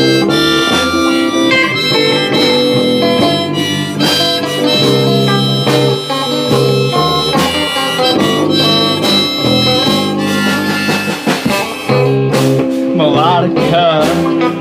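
Instrumental break in a blues-rock song: a harmonica lead over guitar and a drum kit.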